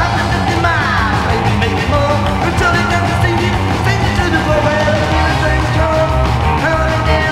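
Psychobilly rock song playing loud: a steady driving low end under a lead line of held notes that step up and down, sliding down about a second in.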